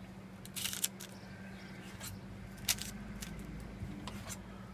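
A knife cutting through a log of rolled bread dough and the slices being set down on a parchment-lined baking tray: a few short scraping sounds, with a sharp tap a little under three seconds in.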